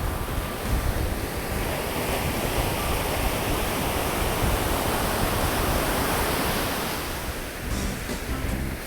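Ocean surf washing onto a beach, a steady rush of breaking waves, with wind buffeting the microphone.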